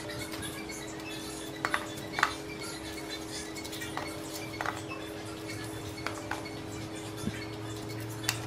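Quartered Thai eggplant pieces and a knife striking a stainless steel bowl, about five separate short ringing clinks, over a steady low hum.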